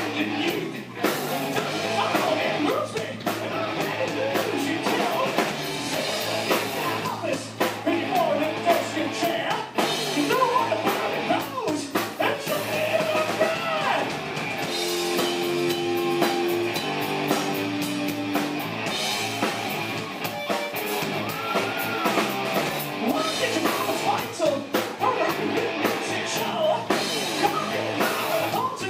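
Rock band playing live: electric guitars, bass and drum kit, with a lead singer's vocals. A couple of held notes stand out about halfway through.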